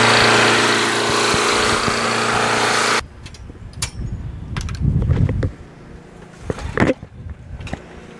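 Craftsman push lawn mower's small engine running at a steady speed, then cutting off abruptly about three seconds in. A few scattered knocks and rustles follow.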